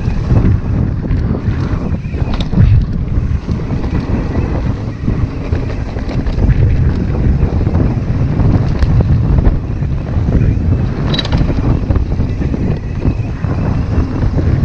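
Wind buffeting the microphone and the rumble of mountain bike tyres rolling fast over a rocky dirt trail, with a few sharp clicks and knocks from the bike over the rocks.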